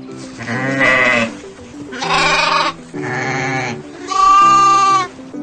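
Goats bleating: four separate bleats, each just under a second long, over light background music.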